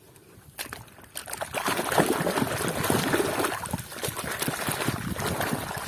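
Water splashing and trickling over a muddy toy as it is rinsed clean, with many small knocks and clicks. It starts about a second and a half in.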